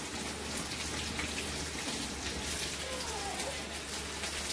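Dry onion skins crackling and rustling as red onions are peeled by hand over a steel bowl: a steady run of small, quick clicks.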